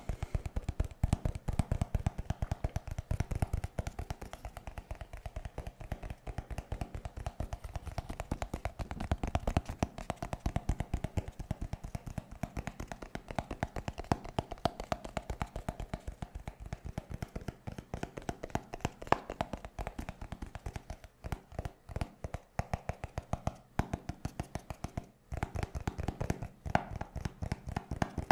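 Fingertips and nails tapping rapidly on a block of sticky-note paper held close to the microphone, a dense run of quick soft taps.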